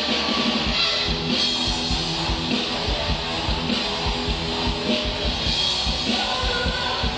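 A live rock band playing: guitars over a drum kit with a steady beat.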